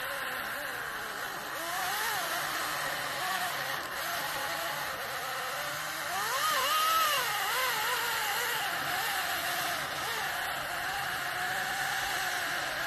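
Greenworks 40-volt DigiPro battery chainsaw cutting into the base of a pine trunk, its motor whine rising and falling in pitch as the chain bites, highest about six to eight seconds in.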